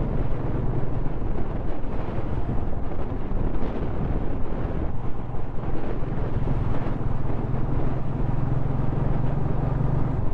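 A steady, loud low engine drone with a rushing noise over it, like wind on the microphone.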